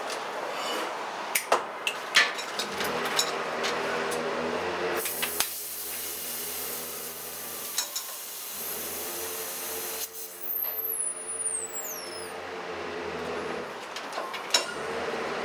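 Metal clinks and knocks of a wrench working the regulator fitting on a compressed-gas cylinder. A loud hiss of escaping gas starts suddenly about five seconds in and cuts off about five seconds later.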